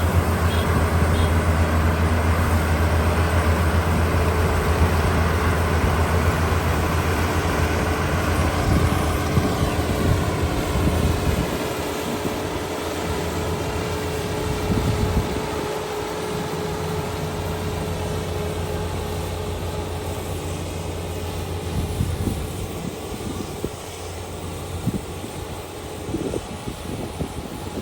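Kubota ER572 combine harvester's engine running with a steady drone, growing fainter over the second half.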